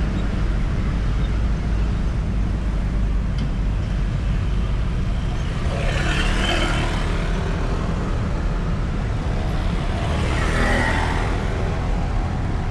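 Highway traffic: a steady low rumble of engines and tyres, with two vehicles passing close by, one about halfway through and another near the end.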